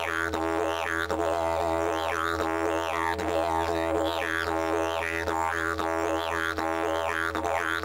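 Didgeridoo playing a steady low drone, its overtones sweeping up and down about once a second in a rhythmic pattern.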